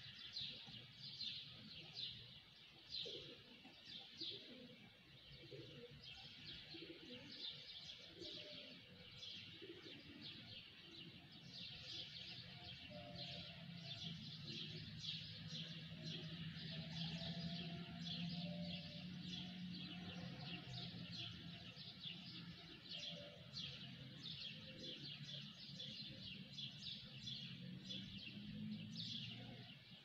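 Dawn chorus of many small birds chirping, a dense unbroken stream of short high chirps. A low steady hum joins about twelve seconds in and fades out near the end.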